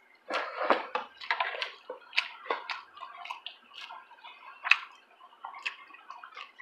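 Irregular light clinks and taps of spoons against ceramic bowls and plates, with small liquid slops as curry and soup are spooned out.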